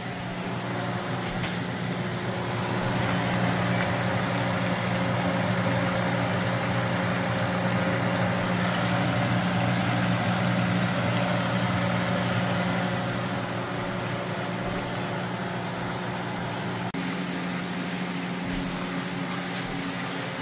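Steady low machine hum with a rushing noise over it that grows louder about two seconds in and eases off after about thirteen seconds.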